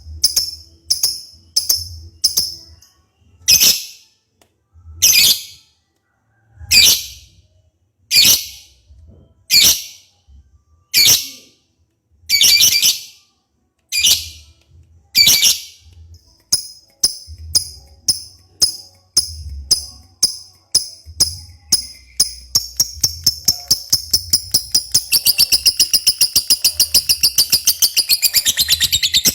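Lovebird calling with sharp, high-pitched chirps. The longer calls come at a steady pace of about one every second and a half, then the chirps get quicker and quicker until they run together into a continuous rapid trill near the end.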